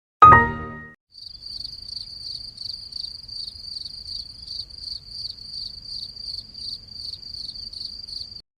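A brief ringing, chime-like hit, then crickets chirping steadily in a high pitch at about three chirps a second, which stop abruptly near the end.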